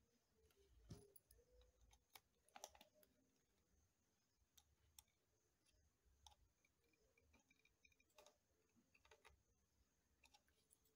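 Near silence with faint, irregular clicks and taps: a small screwdriver and fingers working on the plastic underside of an open HP EliteBook 840 G1 laptop around its hard drive bay, the loudest cluster about two and a half seconds in.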